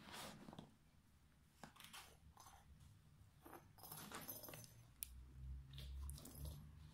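Near silence with faint rustles and light taps from a cat moving about a fabric play tunnel; a low hum sets in about five seconds in.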